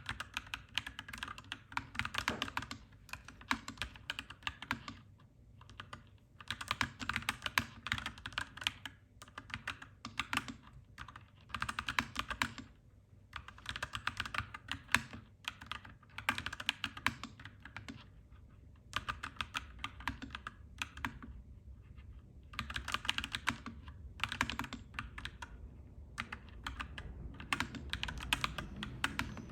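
Clacky mechanical keyboard typing in quick bursts of a second or two, with short pauses between them. A low steady rumble runs underneath and swells slightly near the end.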